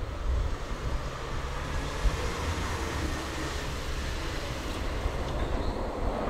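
A car passing on the road close by, its tyre and engine noise swelling and fading over a few seconds, over a low wind rumble on the microphone.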